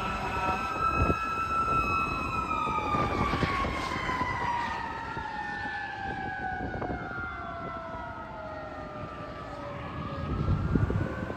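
Fire truck sirens as the aerial platform truck drives away. One siren tone slowly drops in pitch while a wailing tone rises and falls every few seconds. Both fade with distance over the noise of passing traffic.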